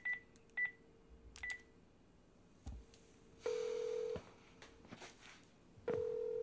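Phone keypad beeping three times as a number is dialled, then the ringback tone ringing twice, each ring under a second.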